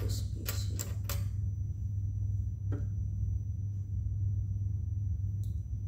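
A steady low hum, with a few light clicks of plastic Lego Technic pieces being handled: three close together in the first second or so and a single one near three seconds in.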